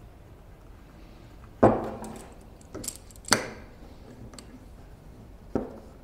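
Four knocks of workpieces and tools being handled and set down on a workbench. The two loudest come about a second and a half in and a little after three seconds, a quieter one falls just before the second, and a small one comes near the end.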